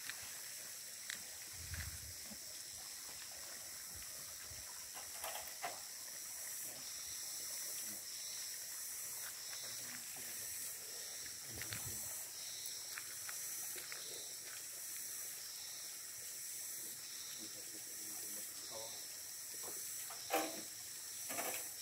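Steady high-pitched outdoor hiss with scattered knocks and clunks as a red hydraulic ram pump is handled and set down on concrete; the sharpest clunk comes near the end.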